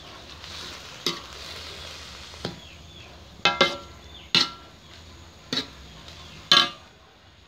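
A metal ladle stirring leaves in a metal wok, knocking against the pan in repeated ringing clanks, some in quick pairs, over a steady low hiss of cooking.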